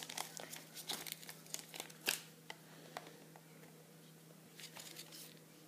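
Plastic wrapping crinkling and tearing as it is pulled off a small pocket projector. The crackles are busiest in the first two seconds, ease off, then come back briefly near the end.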